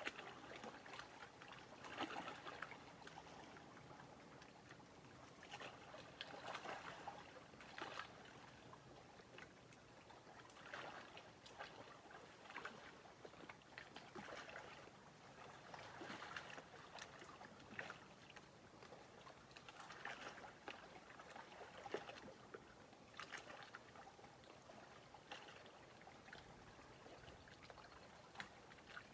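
Faint lapping of small lake waves, soft irregular splashes every second or two over a quiet hiss.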